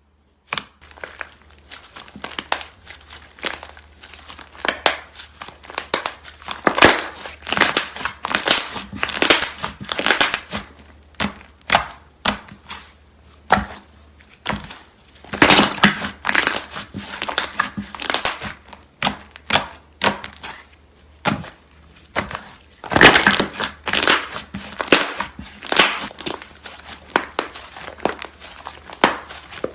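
Slime being squeezed and pressed by hands, giving a dense run of crackling, crunching pops that swell into louder clusters and then ease off.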